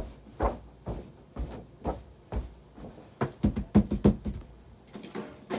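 A run of short knocks and thumps, about two a second, with a louder quick cluster of hits between three and four seconds in.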